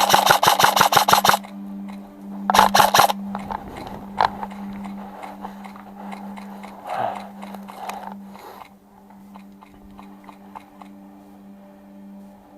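Airsoft gun firing full-auto: a rapid burst of about a dozen shots a second that stops about a second and a half in, then a shorter burst a second later. After that, scattered faint clicks and rustling over a steady low hum.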